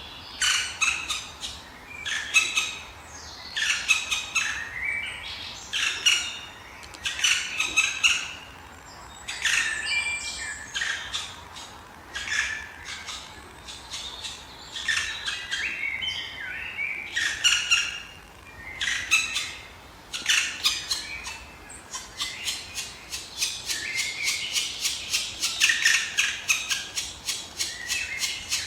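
Black woodpeckers calling: harsh, squawking calls in repeated bouts, turning into a faster, denser run of calls in the last third.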